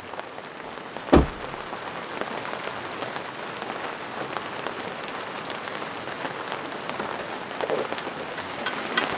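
Steady rain falling and pattering on a surface, with a single sharp thump about a second in.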